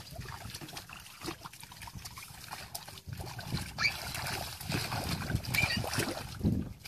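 Irregular splashing and sloshing of shallow, muddy water as feet wade and hands grope through it, with a few brief high-pitched calls.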